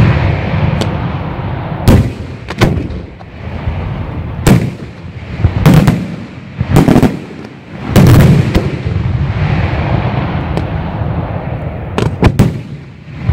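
Aerial firework shells bursting one after another: sharp, loud bangs every second or two with an echoing rumble between them, and a quick run of three bangs near the end.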